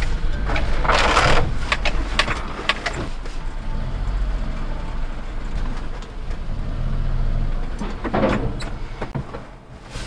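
Daihatsu HiJet S83P mini truck's small three-cylinder engine running at low speed as the truck creeps forward, heard from inside the cab. Two short rushes of noise come about a second in and again near the end.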